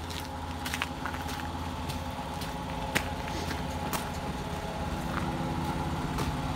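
Footsteps crunching on a gravel driveway, about one a second, over a steady engine hum that grows slightly louder.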